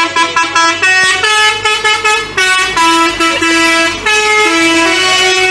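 Cement mixer truck's multi-tone musical air horn (a 'telolet' horn) playing a tune of held notes that step up and down in pitch, over a faint steady engine hum.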